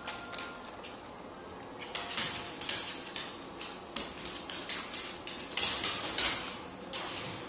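Dogs' claws clicking and scrabbling on a hardwood floor as a large dog and a small puppy scuffle, a rapid, irregular run of sharp clicks starting about two seconds in.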